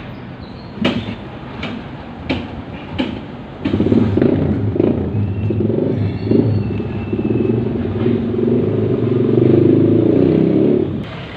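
Four sharp clacks in the first three seconds, then a motor vehicle engine running loudly for about seven seconds before it drops away suddenly near the end.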